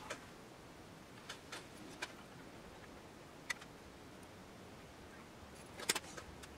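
A handful of light, sharp clicks as steel tweezers and a screwdriver touch the metal plate of a Rolex 1570 watch movement, the loudest cluster near the end, over a faint steady hiss.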